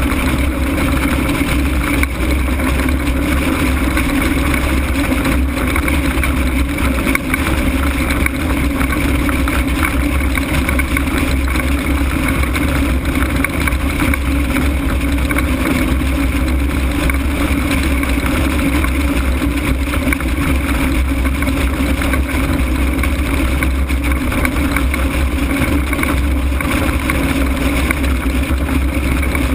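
Steady rush of wind and airflow over an open-frame ultralight aircraft gliding with its engine shut off and propeller stopped. Loud and unbroken, heaviest in a low rumble.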